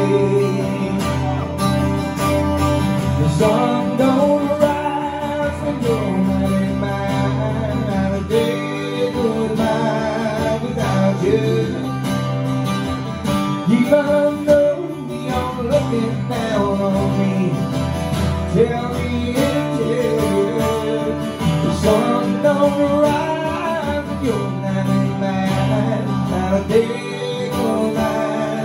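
Two acoustic guitars playing together.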